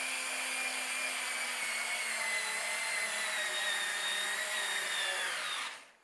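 Drel CON-EAS-1301 3.6 V cordless screwdriver driving a 4.5 x 48 mm screw into construction plywood: a steady motor whine that sinks slightly in pitch as the screw goes in, then stops near the end.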